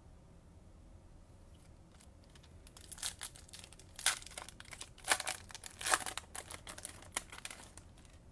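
A Bowman baseball card pack's wrapper being torn open and crinkled by hand, starting about three seconds in as a string of sharp crinkly bursts.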